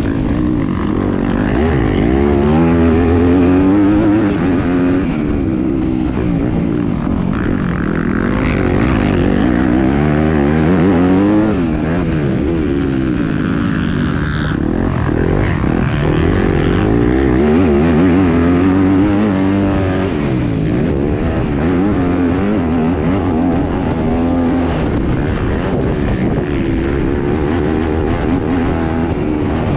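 Yamaha YZ250F's four-stroke single-cylinder engine heard from on board while riding a motocross track, revving hard and dropping back again and again with throttle and gear changes.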